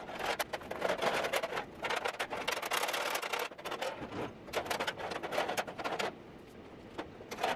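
A thin sheet-metal part, plasma-cut and held by tabs, being bent and pulled free of the sheet by gloved hands: a dense run of scraping, rattling and clinking metal that stops about six seconds in.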